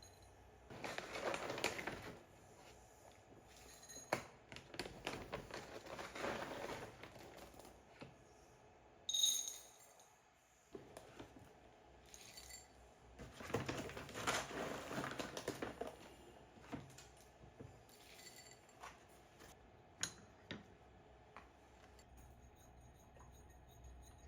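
Dry dog food rattling in several pours or scoops of a second or more into bowls, with scattered clicks and one short ringing clink about nine seconds in.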